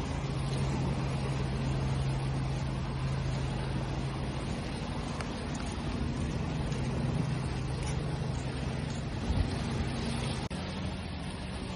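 Steady wash of sea waves with a low, even motor hum beneath it. The hum shifts slightly in pitch a little past the middle, and a brief sharp knock comes near the end.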